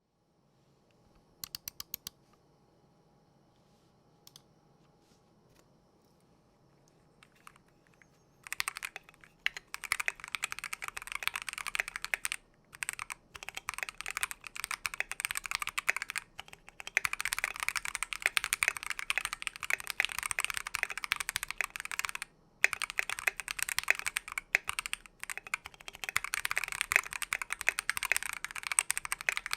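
Typing on a KBDfans KBD67v2 MkII mechanical keyboard with a brass plate, lubed NovelKeys Silk Yellow linear switches and AKKO World Tour keycaps. A few scattered keypresses come first, then fast continuous typing starts about a third of the way in and runs with a few brief pauses.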